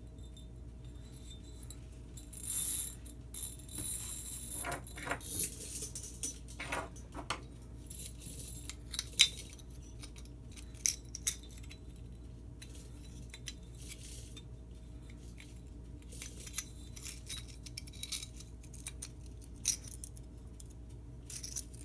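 Metal bead pull chain jingling and small metal switch parts clicking against a porcelain light socket as it is handled and the switch is threaded back in: scattered light clicks and rattles, the sharpest about a third of the way in, over a faint steady hum.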